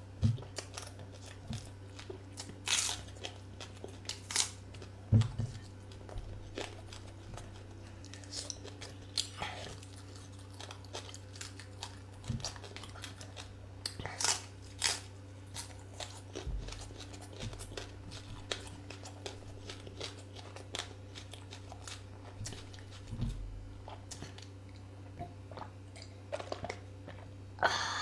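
A person chewing and eating a meal close to the microphone: irregular sharp clicks and short crunches of food in the mouth. A steady low hum sits underneath.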